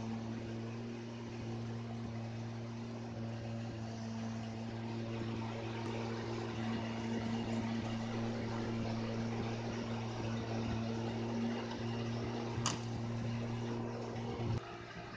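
A motor running steadily with an even, unchanging low hum, then cutting off abruptly just before the end; a single sharp click sounds a couple of seconds before it stops.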